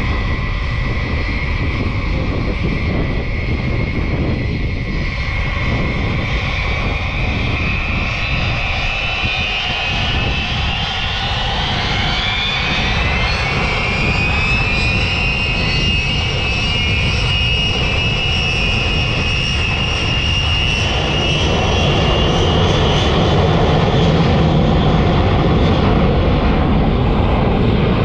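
Boeing 707 jet engines spooling up for takeoff: a whine rises in pitch over a few seconds and then holds, over a heavy rumble that grows louder near the end as the power comes up.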